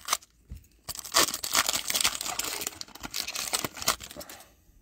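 Foil wrapper of a Panini Chronicles football card pack being torn open and crinkled by hand, a run of crackling from about a second in until near the end.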